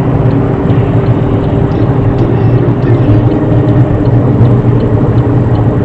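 Steady engine drone and road noise inside the cabin of a loud, high-mileage car while driving.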